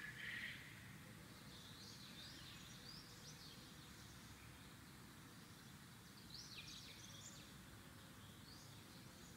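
Near silence: faint room hiss with faint high bird chirps in two short bouts, one early and one past the middle.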